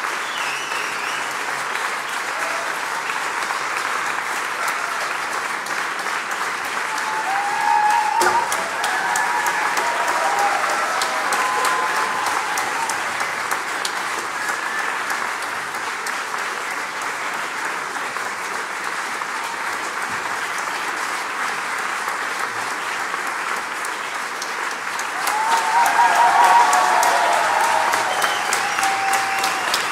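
Audience applauding steadily, with voices calling out over the clapping twice, about eight seconds in and again near the end, when the applause grows louder.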